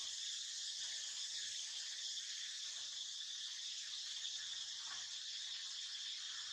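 Steady chorus of insects: a constant high-pitched buzzing drone that neither rises nor falls.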